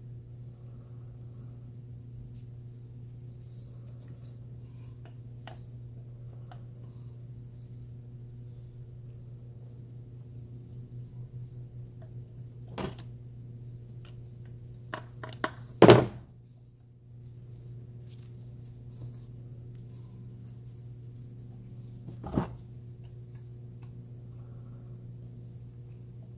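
Circlip pliers and a steel circlip clicking and knocking against a ZF S5D 320Z gearbox case as the circlip is worked into the reverse detent bore against the stiff detent spring. A few small clicks build to one loud sharp metal knock a little past halfway, with another sharp knock some seconds later, over a steady low hum.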